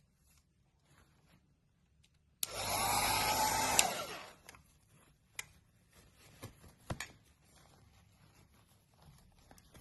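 Electric blower of a portable clothes dryer running in a short blast of about a second and a half: it starts suddenly, its whine rises and then falls, and it dies away. A few faint clicks follow.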